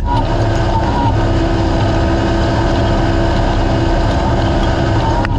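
Naturally aspirated race UTV's engine running steadily at near-constant pitch, under a loud, even rumble of the vehicle travelling over desert terrain.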